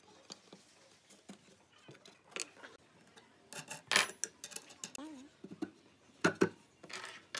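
Steel hex nuts and a threaded rod clinking and scraping as they are handled, with one sharp metallic clink about four seconds in. A little after six seconds, two heavier knocks as a pine board is set down onto the stack on the rod.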